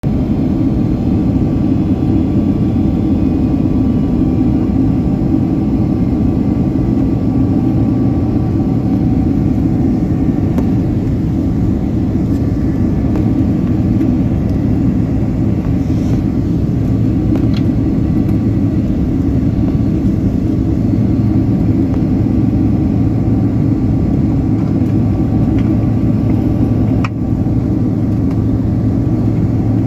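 Steady jet engine and airflow noise heard inside the cabin of a Boeing 767-300ER in flight: an even low rumble with a faint steady whine on top. A single short click near the end.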